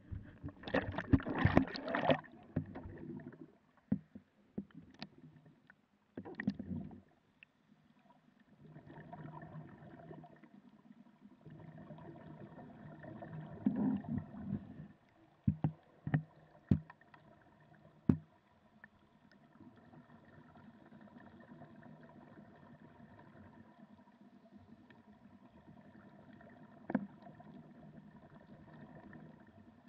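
Muffled underwater sound heard through a camera's waterproof housing as it goes under beside a snuba raft. There is a loud splashing rush about a second in, then a steady low hum with scattered sharp clicks and knocks.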